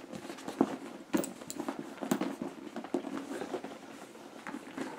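Irregular light rustles, clicks and taps as a Louis Vuitton Neverfull GM tote is handled: the monogram coated canvas shifting and the leather side laces being pulled to cinch the bag's sides.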